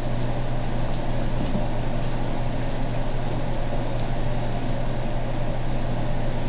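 Steady low hum over an even hiss, with no change in level.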